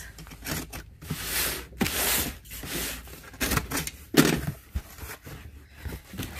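Box cutter slicing through the packing tape on a corrugated cardboard shipping box, a scratchy rasp, followed by cardboard flaps being pulled open with knocks and rustling toward the end.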